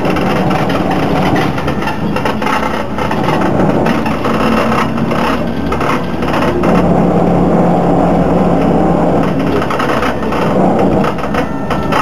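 Interior of a moving LAZ E301 trolleybus: the body and fittings creaking, rattling and grinding over the road, with a steady low hum underneath that grows stronger for a few seconds in the middle. The uploader puts the creaks and grinding down to the trolleybus's poor build quality.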